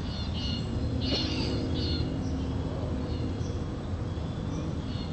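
Geese calling in short, irregular calls over a steady low background noise.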